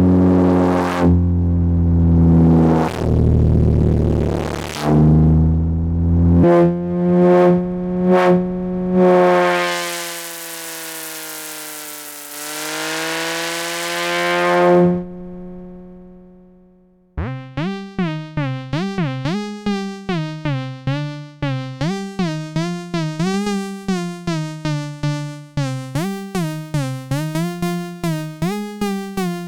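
Arturia MicroFreak synthesizer playing presets: first a thick sustained patch with a noisy swell and pitch glides down and back up, fading out a bit past halfway. Then a new preset starts, a sequence of short, sliding notes at about three a second.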